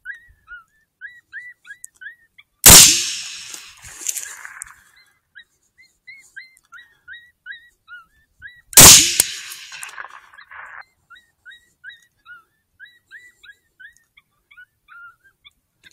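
Two .243 Winchester AR-10 rifle shots, about six seconds apart. Each is a sharp crack followed by a trailing echo that dies away over a second or two.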